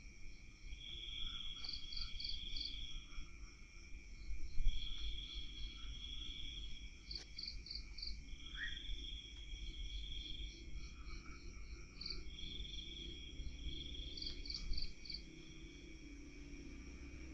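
Crickets chirping at night: rapid high pulses with longer trills about two seconds long coming back every few seconds, over a low steady rumble. A single short rising chirp about nine seconds in.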